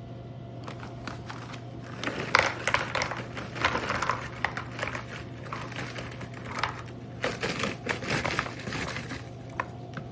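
Snack packaging crinkling and rustling, with quick clicks and taps as snacks are handled into a plastic compartment box, busiest from about two seconds in until near the end. A steady low hum runs underneath.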